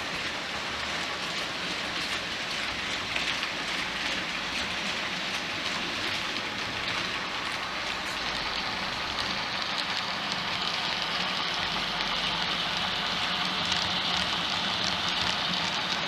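OO gauge model train running on the layout: a steady hiss of wheels on rail, with faint scattered clicks.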